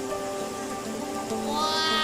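Background music with sustained held notes. Near the end, a note bends downward in pitch.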